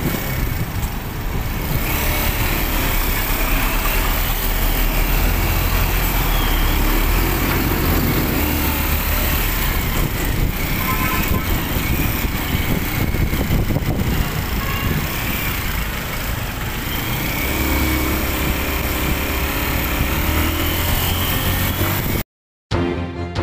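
Motorcycle riding in city traffic, heard from the rider's seat: a steady low engine drone under wind and road noise. About 22 seconds in it cuts off abruptly and music starts.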